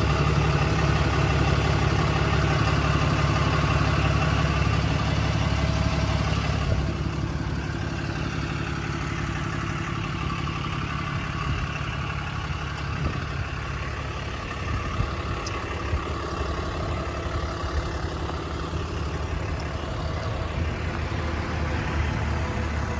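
A 2013 Ram 4500's 6.7-litre Cummins diesel idling steadily. It is louder for the first several seconds, then drops to a lower, even level from about seven seconds in.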